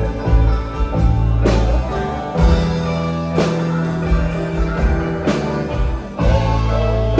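Live rock band playing an instrumental passage: drum kit strikes about once a second over bass and guitar.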